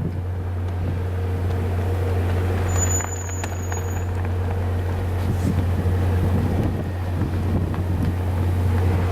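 Steady low hum of a Via Rail F40PH-2 diesel locomotive running, mixed with wind noise on the microphone. A faint high-pitched tone sounds briefly about three seconds in.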